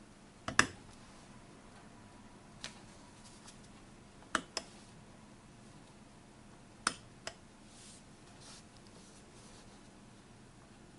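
Controls of a Jaeger-LeCoultre Chronoflite elapsed-time clock being worked: a handful of sharp mechanical clicks, several in close pairs, the loudest about half a second in, with faint rubbing of fingers on the case near the end.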